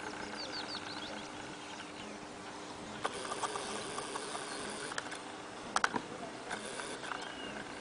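Outdoor ambience at a fur seal rookery: a steady wash of background noise, with a brief run of short high chirps about half a second in and a few sharp clicks later on.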